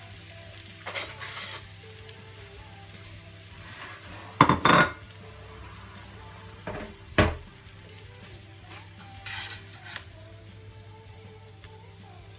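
Kitchen clatter as a cutting board is cleared and a ceramic plate is set down on a stone counter: a few separate knocks, the loudest about four and a half seconds in and another sharp one near seven seconds. Under them a pan of stir-fried glass noodles sizzles faintly.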